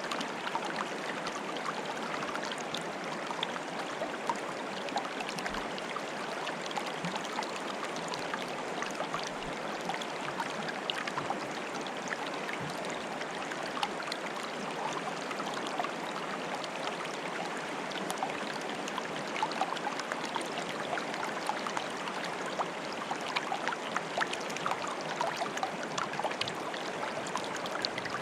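Running water bubbling and trickling in a steady rush, with many small irregular splashes throughout.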